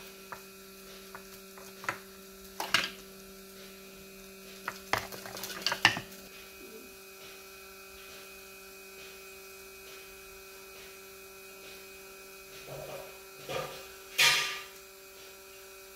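A steady electrical hum, with a few light clicks and knocks in the first six seconds and a short scrape about fourteen seconds in.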